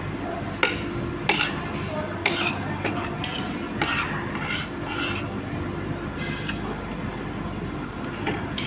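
Cutlery clinking and scraping against dishes, with several sharp clinks in the first four seconds.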